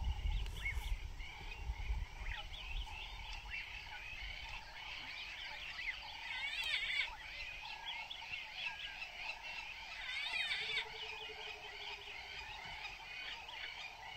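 A chorus of many wild bushveld birds calling over one another: a steady wash of quick chirps, trills and whistles that swells into louder chattering flurries twice, around the middle and a few seconds later. A low, steady note is held for about two seconds after the second flurry, and there is some low rumbling in the first couple of seconds.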